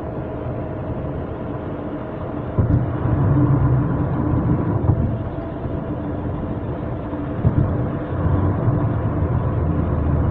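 Steady road and engine noise inside a car's cabin cruising on a freeway. A low rumble grows louder twice, each time opening with a short knock.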